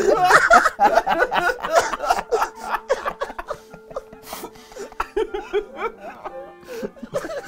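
Several people laughing and chuckling, fading out, over quiet background music.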